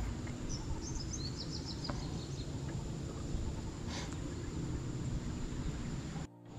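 Outdoor ambience: a steady high insect drone, and a bird giving a quick run of short chirps about half a second in. Under them is a low rumbling noise. The sound drops out briefly near the end.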